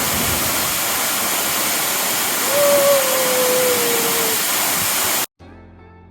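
Waterfall pouring: a loud, even rush of falling water, with a held, slowly falling tone about two and a half seconds in. The rush cuts off suddenly near the end and faint acoustic guitar music begins.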